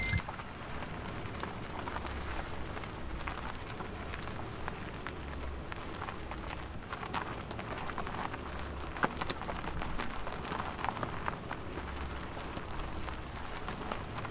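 Pickup truck driving over a dirt road: tyres crackle steadily over the ground with scattered sharp ticks, over a low engine rumble.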